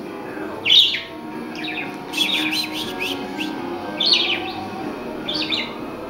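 Budgerigar giving short, sharp chirps: one about a second in, a quick cluster in the middle, and two more single calls later.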